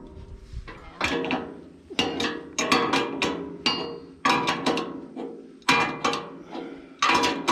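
Repeated hammer blows on steel, irregular at about one or two a second, each ringing briefly.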